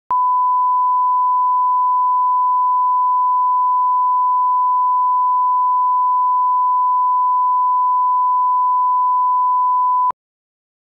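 Broadcast line-up reference tone: a single steady 1 kHz sine tone, the level-setting tone that runs with colour bars. It holds for about ten seconds and then cuts off abruptly.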